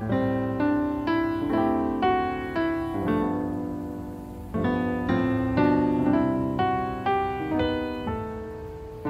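Background piano music: soft notes and chords struck about every half second to a second, each ringing and fading before the next.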